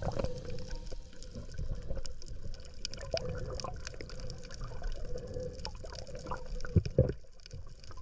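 Underwater sound picked up by a camera below the surface: a steady low rumble of moving water with many scattered crackles and clicks, a faint steady hum, and a couple of louder knocks near the end.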